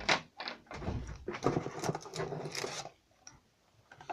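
Boxes and packaging being handled and moved: a few knocks and clicks, then scraping and rustling that stops about three seconds in.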